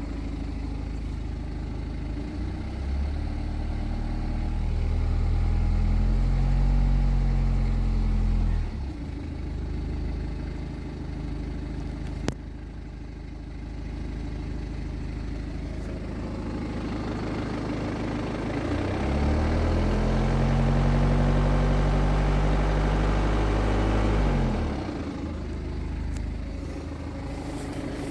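BMW B47 four-cylinder diesel idling, revved up twice and held at raised revs for a few seconds each time before dropping back to idle. At operating temperature, with oil at 100 °C, the timing chain noise is barely audible. A single sharp click about twelve seconds in.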